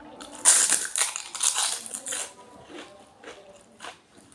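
Crisp fuchka (pani puri) shells crunching loudly as they are bitten and chewed, for about two seconds. Softer, scattered chewing clicks follow.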